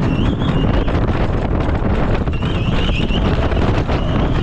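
Wind rushing over the microphone and the rumble of an RMC wooden roller coaster train with steel Topper Track running at speed through a turn, loud and unbroken.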